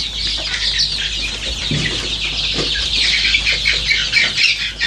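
A brood of hundreds of week-old ayam kampung (Indonesian native chicken) chicks peeping all together: a continuous dense chorus of short, high overlapping cheeps.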